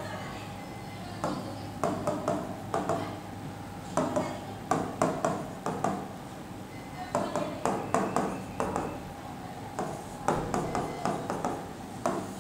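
Marker pen writing on a whiteboard: several bursts of quick taps and scratches as letters and fraction bars are written, with short pauses between, over a faint steady hum.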